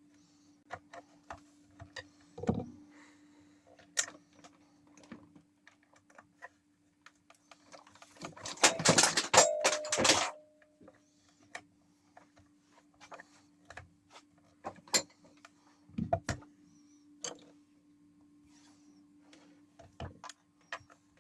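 Scattered clicks and knocks from small plastic mixer parts being handled and fitted, with a loud busy clatter about eight seconds in. A faint steady low hum runs underneath.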